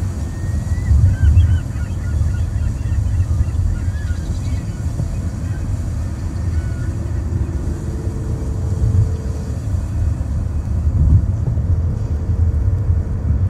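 Steady low rumble of a car's road and engine noise heard from inside the moving car. Faint wavering chirps sound over it in the first half. Later a steady mid-pitched tone is held for about two seconds, twice.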